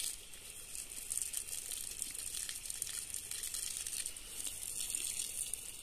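Water jet from a garden hose spray nozzle splashing onto the soil and leaves around a small shrub, a steady hiss with faint spattering.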